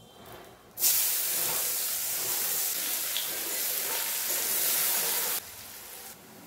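Chopped onion dropped into hot oil with whole spices in a kadai, sizzling loudly all at once about a second in as it is stirred with a spatula. About five seconds in the sizzle drops suddenly to a faint hiss.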